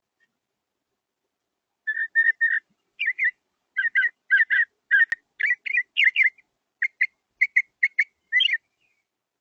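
Northern mockingbird singing: starting about two seconds in, a string of short whistled notes, mostly in quick pairs, repeated with small changes for about seven seconds.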